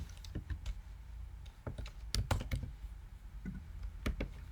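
Typing on a computer keyboard: irregular, quick keystroke clicks, with a denser cluster about two seconds in.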